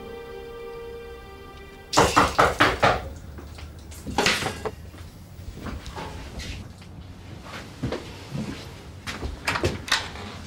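Drama score fading out, then a quick flurry of hard knocks on a door about two seconds in, followed by scattered door thuds and clicks.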